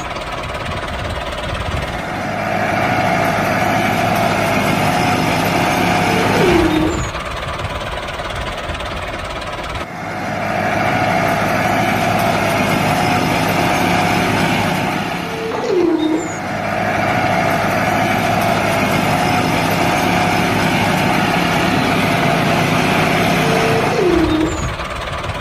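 Miniature Massey Ferguson 385 model tractor running under load as it pushes a levelling blade through sand: a steady engine-like drone with a short falling whine about every nine seconds.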